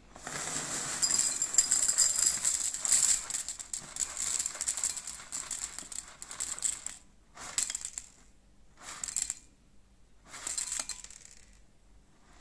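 Cornflakes poured from the box into a ceramic bowl, a long rattling pour, then three short shakes near the end topping it up to a weighed 30 g serving.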